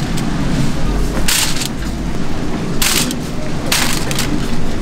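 Aluminium foil tray lining crinkling in three short rustles, about a second apart, as fried chicken pieces are packed into it, over a steady low hum.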